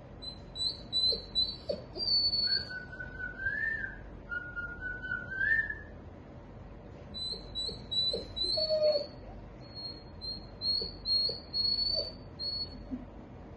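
Golden retriever whining through its nose in high, whistle-like peeps: quick runs of short rising notes, with two longer, lower rising whines in the first half. Faint short squeaks come now and then.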